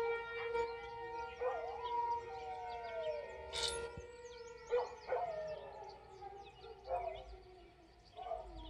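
ASC T-128 tornado siren winding down at the end of its test, its steady tone slowly falling in pitch and fading. A dog howls and yelps over it several times.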